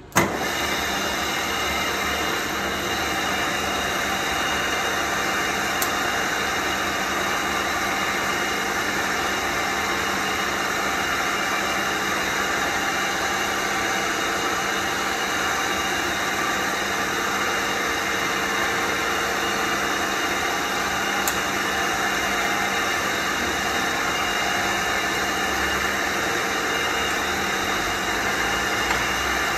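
DPM CNC bed mill switched on with a short click, then its spindle head and 3.75 kW motor running at a steady speed: a constant hiss with a few steady tones, unchanging throughout.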